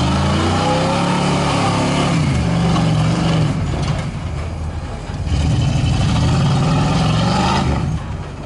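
Rock crawler buggy's engine revving hard under load as it climbs a steep rock ledge, in two long surges with a brief drop-off about four to five seconds in.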